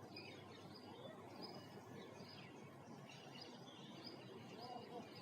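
Faint outdoor background with birds chirping softly now and then.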